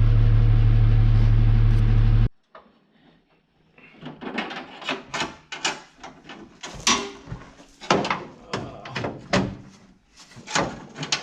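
A vehicle engine running steadily, cutting off abruptly a little over two seconds in. It is followed by a string of irregular clicks and knocks, like a door and parts being handled.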